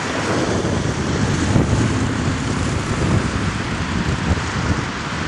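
Wind blowing across an outdoor microphone: a loud, steady, gusting noise, heaviest in the low end.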